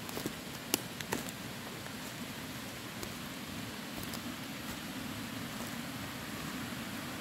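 Steady rushing of a creek's water, with a few sharp crackles in the first second or so.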